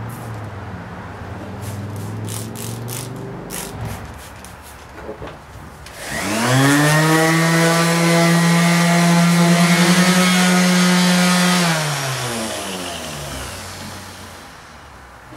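Corded electric random orbital sander wet-sanding gelcoat with a 2000-grit disc: about six seconds in the motor spins up to a steady high-pitched hum, runs for about six seconds, then winds down gradually. Before it, a few quick sharp squirts from a water spray bottle.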